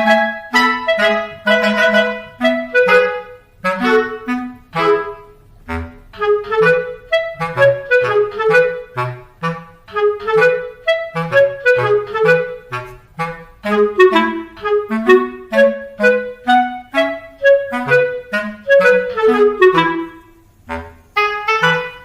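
Background music: a bouncy tune of short detached clarinet-like notes over a plucked bass line with a steady beat.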